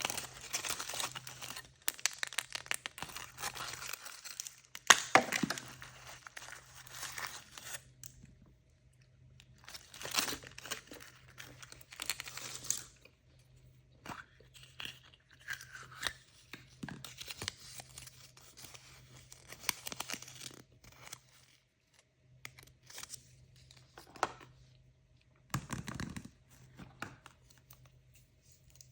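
Toy surprise packaging being torn open and crinkled by hand: bursts of rustling wrapper noise with sharp rips and clicks, broken by short pauses.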